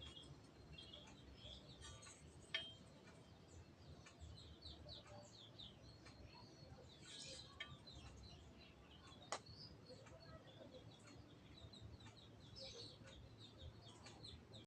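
Faint, scattered bird chirps over near silence, with two brief sharp clicks, one a couple of seconds in and one past the middle.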